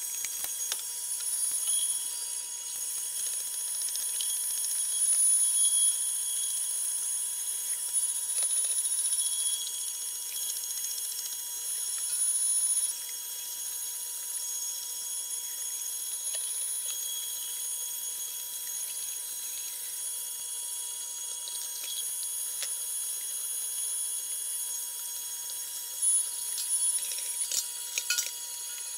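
Cabela's commercial-grade 1 HP electric meat grinder running with a steady high whine as it pushes pork and venison through a coarse grinding plate. It swells briefly louder a few times.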